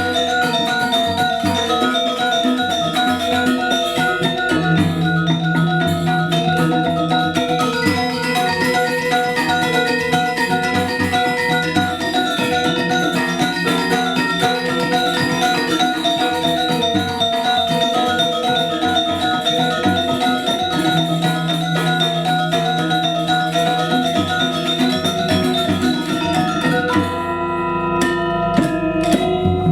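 Balinese gamelan playing Legong dance music: rapid interlocking metallophone figures over low sustained tones, the texture thinning briefly near the end.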